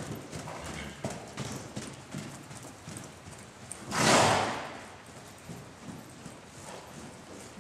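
Hoofbeats of an Appendix Quarter Horse on the dirt footing of an indoor arena, soft, frequent thuds. About four seconds in there is one loud rush of noise lasting about half a second.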